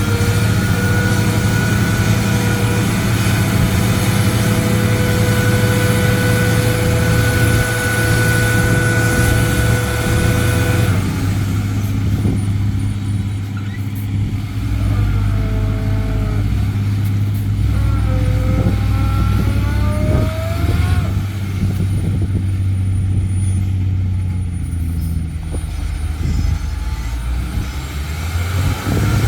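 Dump truck's engine running steadily. About eleven seconds in its note drops and changes, and a few short rising whines follow.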